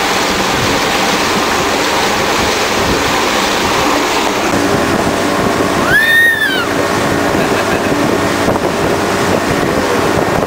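Boat under way: its motor running steadily under the rush of water along the hull and wind buffeting the microphone. About six seconds in, a toddler gives one short high squeal that rises and falls.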